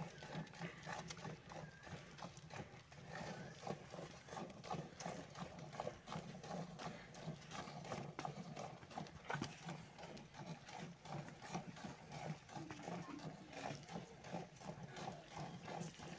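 A cow being milked by hand: rhythmic squirts of milk from the teats hitting the froth in a nearly full aluminium pot.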